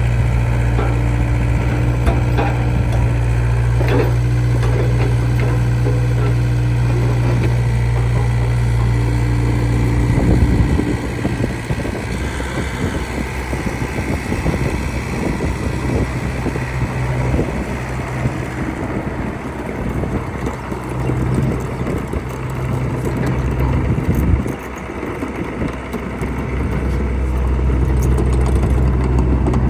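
Case CX60C mini excavator's diesel engine running with a steady hum and a few clanks. About ten seconds in, the sound turns rougher and noisier as the machine is worked, and the steady engine hum comes back at intervals and grows strong again near the end.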